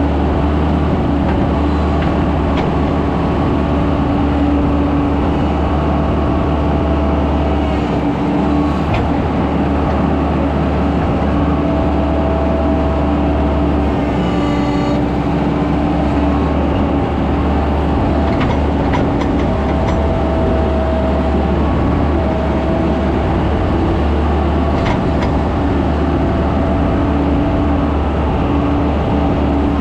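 Skid steer engine running steadily under work, with a higher whine that comes and goes and a few light clanks.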